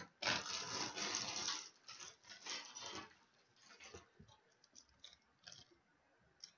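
Packaging rustling as a DVD box set is taken out, in two stretches over the first three seconds, then a few light clicks and taps as the plastic case is handled.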